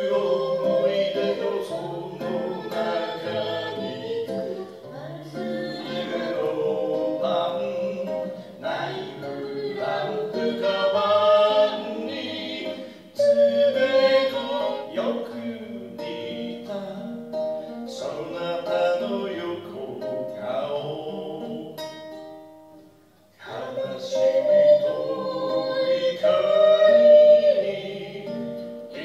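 A man singing a song while strumming an acoustic guitar at a live performance, with a short break in the music about three-quarters of the way through.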